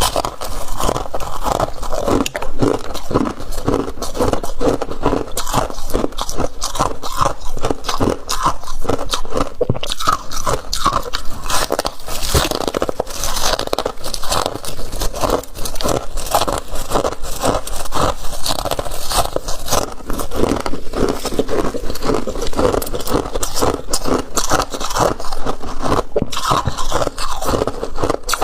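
Flaky freezer frost being bitten and chewed close to the microphone: a dense, unbroken run of crisp crunches.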